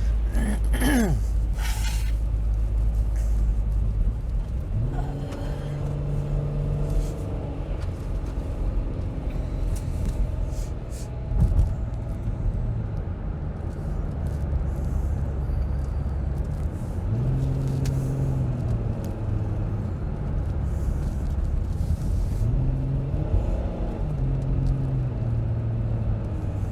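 Car engine and road rumble heard from inside the cabin while driving. The engine note rises and levels off three times, with a single knock about halfway through.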